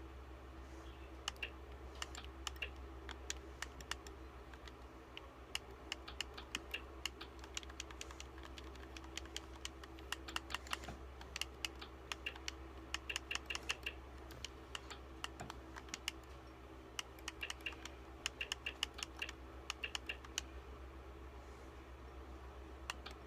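Computer keyboard typing: flurries of quick key clicks with short pauses between them, over a steady low hum.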